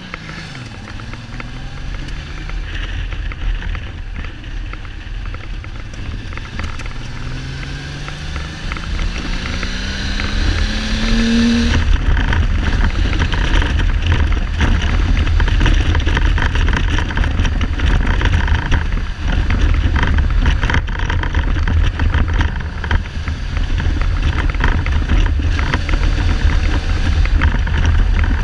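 Kawasaki Z1300 inline-six motorcycle engine accelerating, its pitch rising through the gears for about the first twelve seconds, then heavy wind buffeting on the microphone at speed covers it. The engine is not running on all cylinders: a misfire the owner puts down to the carbs or spark plugs.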